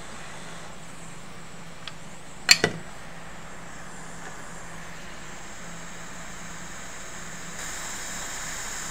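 Steady hum and hiss from microsoldering bench equipment, with a sharp double click from tool handling about two and a half seconds in; near the end the hiss gets a little louder.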